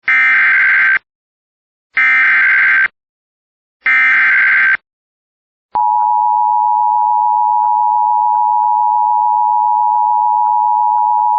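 Emergency Alert System header: three one-second bursts of shrill warbling data tones, repeated at two-second intervals. About six seconds in, the steady EAS attention tone starts and holds, signalling that an alert message follows.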